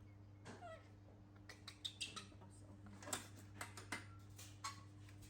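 A baby animal eating mangosteen: a short falling squeak about half a second in, then scattered small clicks and smacks from its mouth and the fruit. A faint steady hum runs underneath.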